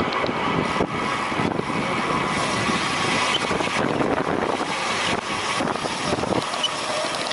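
Wind buffeting the microphone of a body-worn camera while moving at speed: a steady, loud rushing noise with a few brief dips.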